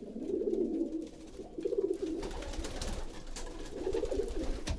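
Racing pigeons cooing in the breeding loft during pairing season, with three spells of low, rolling coos: near the start, in the middle and near the end.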